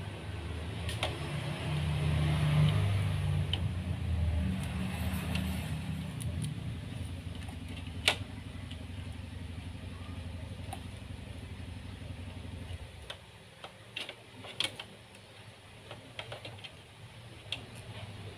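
A low, steady engine-like rumble, like a motor vehicle running close by, stops abruptly about two-thirds of the way through. Scattered light clicks and taps come from wires and a soldering iron being handled on a circuit board.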